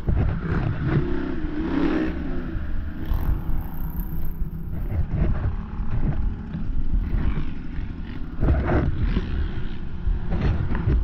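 Can-Am ATV's V-twin engine running and revving, rising in pitch about a second in, with knocks and clatter over it.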